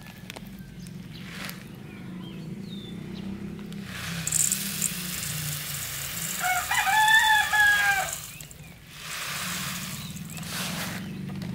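Dry fish-food pellets pouring from a foil bag into a stainless steel bowl, a rattling hiss from about four to eight seconds in. Midway through the pour a rooster crows once, about a second and a half long and the loudest sound.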